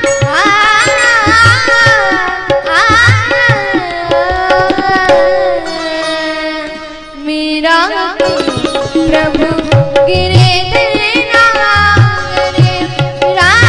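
A woman singing an ornamented Indian devotional melody with tabla accompaniment. About six seconds in the tabla drops out while she holds one long gliding note; the drumming comes back about two seconds later.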